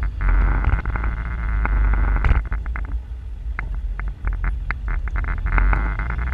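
Classic Range Rover driving off-road, its engine running with a steady low drone, heard close through the bonnet-mounted camera, with frequent sharp knocks and clatters from the vehicle over rough ground, thickest from about two seconds in.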